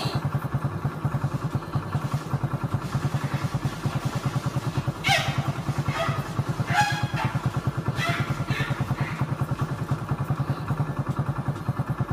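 Vehicle engine idling with a fast, even low throb. A few short higher-pitched sounds come in over it about halfway through.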